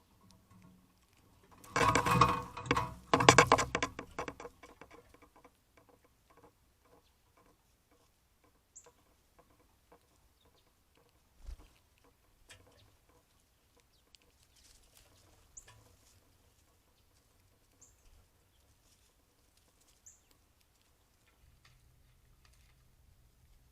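Birds at a backyard feeder: a loud burst of rapid patter about two seconds in, lasting some two and a half seconds, then scattered light taps and a few brief, faint, high chirps.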